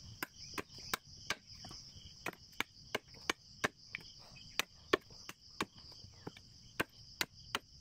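Machete blade chopping the end of a wooden stick held against a tree stump, quick sharp chops about two to three a second, whittling it to a point so the planting stick sinks into the soil. A steady high insect chirring runs underneath.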